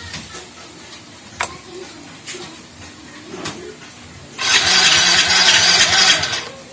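Yamaha Mio Soul i scooter engine being cranked for about two seconds without catching, after a few faint clicks. It fails to fire because a wire to its fuel injector has been chewed through.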